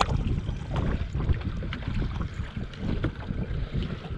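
Wind buffeting the microphone over water lapping around a small boat, with scattered light clicks and knocks.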